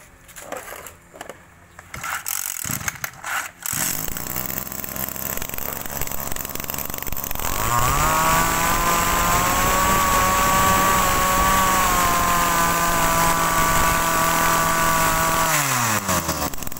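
Small Yanmar two-stroke brush-cutter engine being pull-started. After a few knocks it catches about four seconds in and runs at low speed, then revs up to a steady high speed a few seconds later. Near the end its pitch falls as it slows down.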